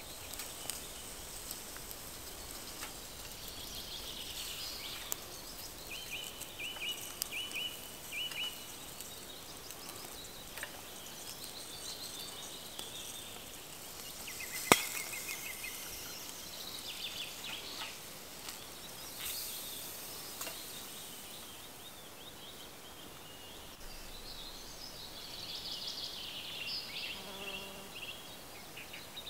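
Quiet forest ambience with small birds chirping now and then and a single sharp click about halfway through.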